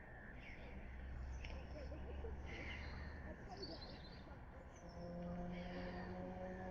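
Small birds chirping and singing. About five seconds in, a low, steady pitched hum sets in underneath.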